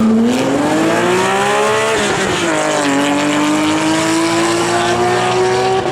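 Racing car engine revving: its pitch climbs for about two seconds, drops, then rises slowly again. It starts abruptly and is loud.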